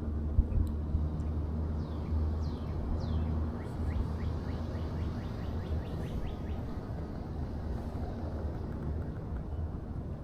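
A steady low rumble, with a bird calling over it: three falling whistles about two seconds in, then a fast run of short chips that trails off by about seven seconds.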